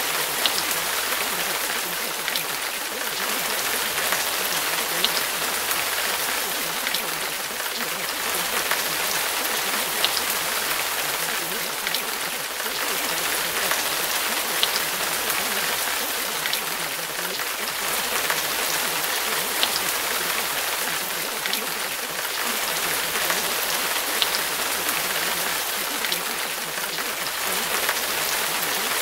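Steady rain recording: an even hiss of rainfall with scattered sharp drop ticks.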